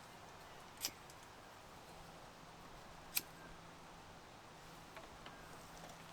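Quiet steady hiss with two sharp clicks, one about a second in and one about three seconds in, and a few fainter ticks near the end.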